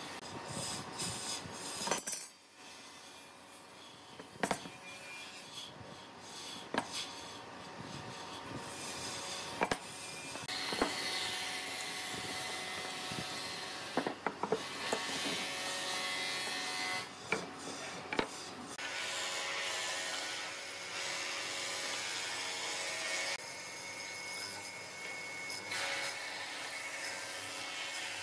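Hand work with wood on a bench: boards knocked and set down, with scraping and rubbing against the bench top. Scattered sharp knocks stand out from the rubbing.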